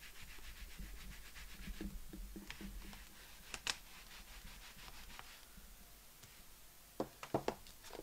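Clear acrylic stamp block scrubbed back and forth on a stamp scrubber's fibre pads to clean the ink off the stamp: a fast, scratchy rubbing, with a sharp click about halfway through. Near the end a few quick knocks as the scrubber case is shut.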